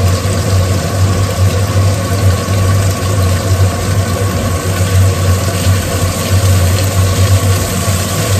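Steady low motor hum, unbroken, with a faint hiss above it.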